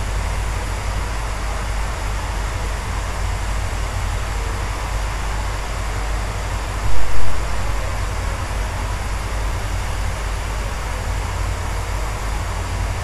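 Steam locomotive standing at the platform: a steady hiss with a low rumble underneath. Two brief loud bumps close together a little past halfway.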